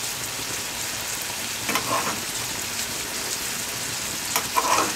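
Ground beef and Italian sausage sizzling steadily in a frying pan, in their own watery juices and fat. A metal spoon scrapes against the pan twice, about two seconds in and near the end, as the liquid is spooned out.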